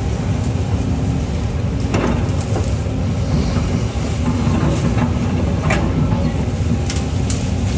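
Excavator's diesel engine running steadily, with a few sharp knocks about two, six and seven seconds in.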